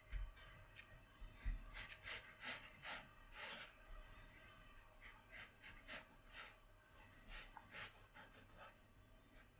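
Faint, short scratchy strokes of a watercolour brush on paper as dark blue paint is dabbed on, coming irregularly in quick clusters over a low steady hum.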